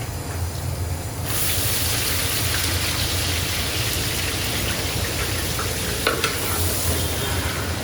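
Food sizzling in hot oil in a large cooking pot, the sizzle starting suddenly about a second in and then holding steady over a low hum, with a couple of brief clicks near the end.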